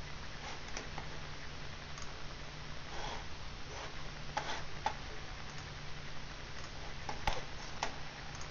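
Scattered computer mouse clicks, about eight, one sharpest about seven seconds in, over a low steady hum.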